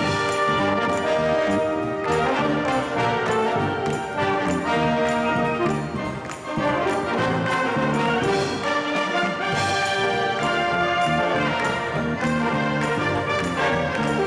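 Live school wind band playing a brass-led chart: trumpets, trombones, saxophones, flutes and tuba over a drum kit, with sustained notes and a short let-up about six and a half seconds in.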